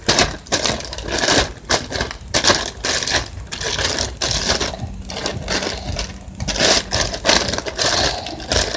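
Slightly sticky slime being squeezed and worked by hand, giving off fast, irregular clicks and pops.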